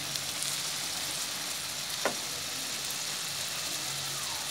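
Whole shrimp frying in bubbling butter in a wok, a steady sizzle with one sharp click about two seconds in.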